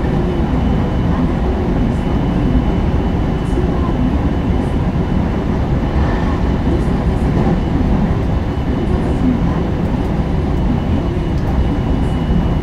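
JR West 223 series 0-subseries electric train (Toshiba GTO inverter motor car) running along the line, heard from inside the car: a steady rumble of wheels on rail with a thin steady high tone above it.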